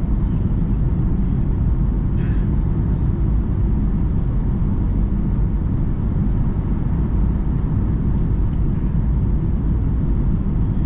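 Boeing 757-200 cabin noise: a steady low rumble of jet engines and airflow, with a brief hiss about two seconds in.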